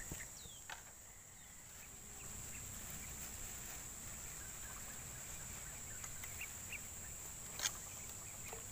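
Steady high-pitched insect drone, with a few faint bird chirps and two short clicks, one soon after the start and a louder one near the end.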